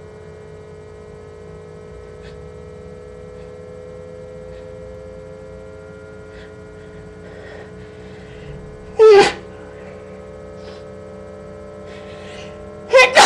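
A person sneezing from allergies: one loud sneeze about nine seconds in, then a second, double-peaked sneeze near the end. A steady background hum runs underneath.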